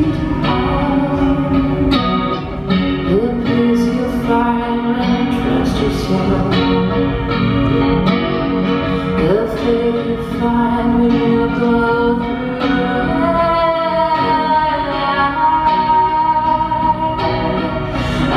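A live indie band playing a song: guitar with a singing voice, loud and continuous.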